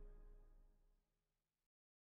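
The last notes of orchestral theme music dying away within about the first second, then silence.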